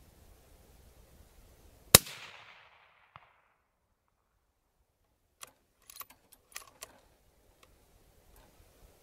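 A single shot from a .243 Ruger Predator bolt-action rifle fired through a .30-cal suppressor, about two seconds in, with a short fading echo. A faint tick just over a second later is the bullet striking the 12-inch steel plate at 300 yards. It is followed a few seconds later by a run of small metallic clicks as the bolt is worked for the next round.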